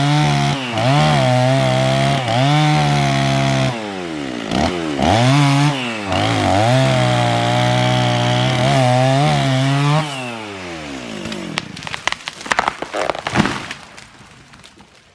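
Chainsaw running at high revs in a cut, its pitch dipping and recovering several times, then winding down about ten seconds in. A series of cracks and snaps follows, the loudest near the end, as the dead elm breaks over and hits the ground.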